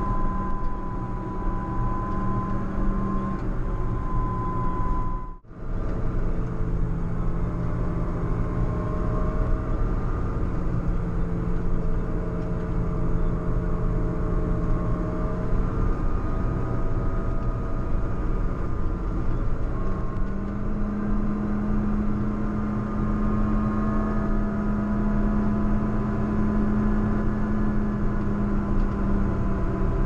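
JCB Fastrac 4220 tractor's six-cylinder diesel engine running steadily under load while it pushes a snow plough, over a dense low rumble. The sound drops out for a moment about five seconds in, and the engine note rises slightly about twenty seconds in.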